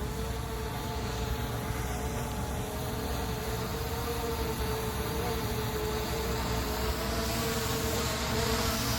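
SG906 Pro 2 quadcopter drone's propellers humming with a steady, even pitch over a low rumble, growing slightly louder near the end.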